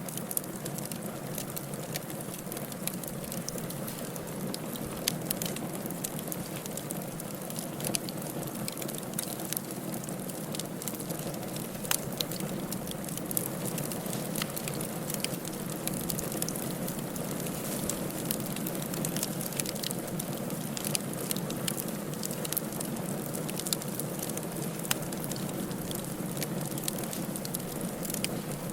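Firewood burning in a fireplace: a steady low rush of flame with frequent small sharp crackles and pops scattered throughout.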